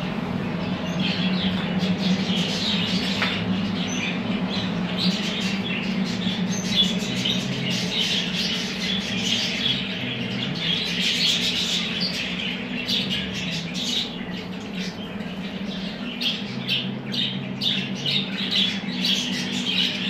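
A roomful of budgerigars chattering, chirping and squawking without pause, over a steady low hum.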